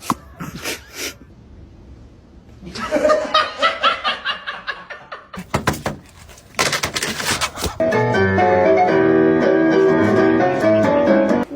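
Bursts of laughter, then music with steady held notes that cuts off suddenly near the end.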